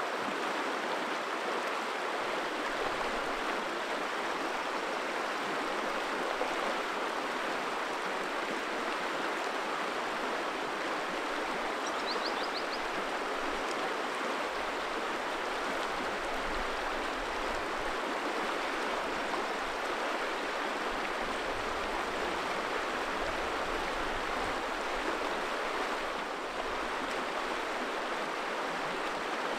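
Steady rushing of a river flowing over its bed, an even wash of water noise.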